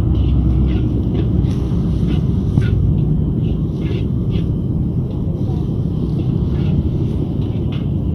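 Gas wok burner running with a steady low rumble, while a metal spatula scrapes and clinks irregularly against the wok, stir-frying greens and egg.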